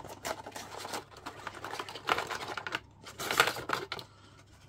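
Small clear plastic boxes sliding out of a cardboard box and being set down on a cutting mat: a run of light plastic clicks and taps, loudest about two seconds and three and a half seconds in.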